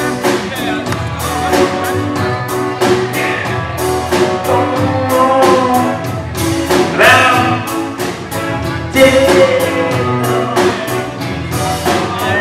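Live band playing an instrumental passage: a steady drum beat under sustained keyboard and instrument lines.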